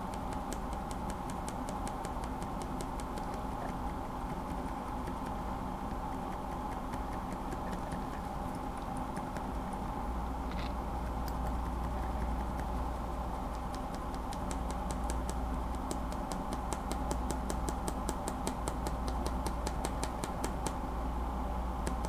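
Aliaz silent mechanical keyboard switch being cycled again and again, giving small sharp plastic clicks at about four a second that thin out for a few seconds midway. These are the light tapping that these Gateron-made silent stems make at some angles: the stem's undampened plastic leg bottoms out against the housing.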